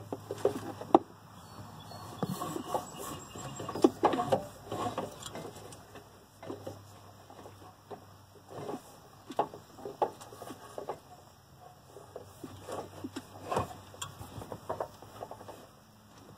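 Irregular clicks, knocks and clatter of tools and parts being handled during hands-on work on the truck, with a few sharper knocks about a second in, around four seconds in and near thirteen and a half seconds.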